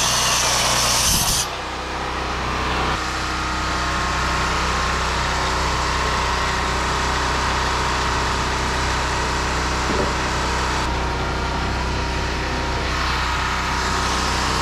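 A power saw cutting lumber cuts off about a second and a half in. A steady engine hum carries on underneath.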